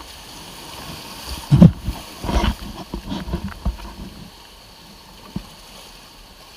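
Water splashing and sloshing in a burst of irregular knocks and splashes over about two seconds, then one sharp knock, over a steady hiss.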